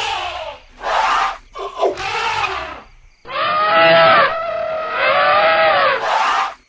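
Elephants trumpeting and screaming: several short calls in the first three seconds, then one long pitched call lasting nearly three seconds.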